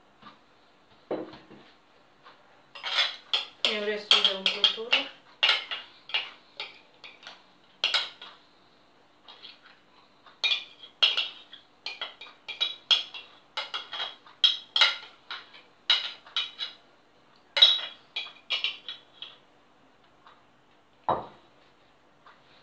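A spoon scraping and clinking over and over against a glazed ceramic bowl as thick filling is scooped out of it, with a dull knock near the end.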